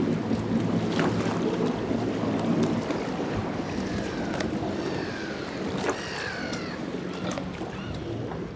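A boat's engine idling with a steady low hum, with scattered knocks and clicks as a mooring line is handled on deck. Several short, high, falling chirps come in the second half.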